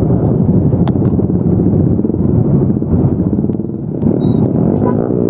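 Yamaha Y15ZR motorcycle running on the road, a dense, steady rumble; the loudness dips briefly about four seconds in, then picks up again.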